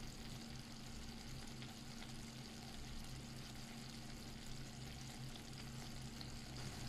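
Faint, steady sizzling of carrots and tomatoes simmering in oil in a pan on a low flame, with a low steady hum underneath.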